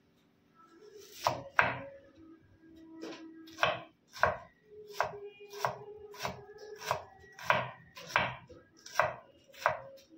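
Kitchen knife chopping a red onion on a wooden cutting board: a steady run of sharp chops about every half second, starting about a second in.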